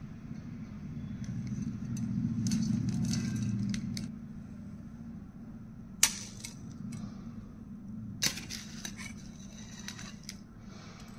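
Dishes and cutlery clinking during a meal: a few sharp clinks of a plate and utensils, the loudest about six seconds in and just after eight seconds, over a low steady hum.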